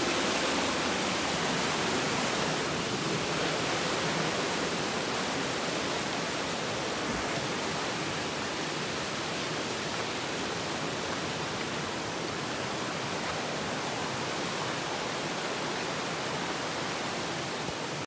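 Fast-flowing rocky stream rushing, a steady even hiss of water that fades a little as it goes on.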